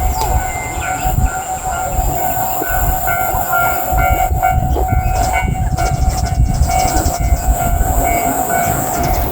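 Japanese level crossing's electronic warning bell ringing its steady "kan-kan" alarm, with a low rumble underneath.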